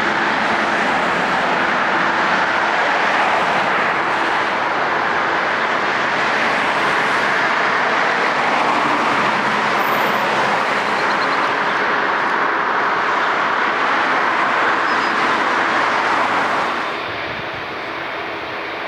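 Airbus A330-200 jet engines at high thrust on departure: a loud, steady rushing roar with a faint low hum, dropping in level about seventeen seconds in.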